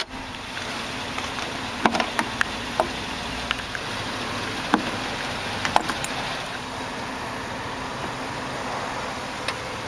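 Sharp, irregular clicks and clacks of a 2009 Hummer H2's hood being unlatched: the release handle under the dash pulled, then the hood's front latch clamp flipped open and the grille handle gripped. A steady low hum runs underneath.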